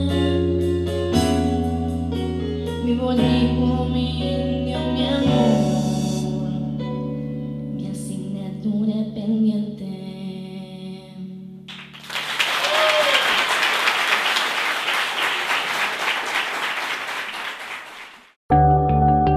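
A girl's solo singing voice over held accompaniment chords ends the song, and the last chord fades out. An audience then applauds for about six seconds, cut off abruptly, and a different, chiming music starts near the end.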